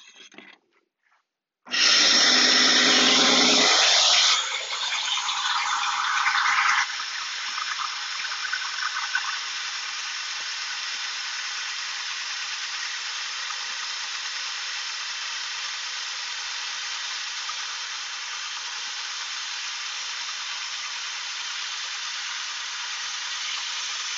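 Shopsmith bandsaw coming on suddenly and loudly about two seconds in, then running steadily with an even hiss as the blade resaws a thin strip off a board held against the fence.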